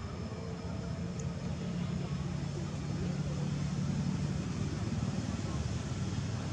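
A steady low engine drone, growing slightly louder about halfway through.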